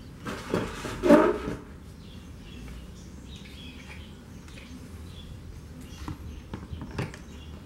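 A large black plastic lid scraping and knocking as it is shifted into place, loudest about a second in, then a sharp click near the end as a clear plastic base is set down on the lid. Birds chirp faintly in the background.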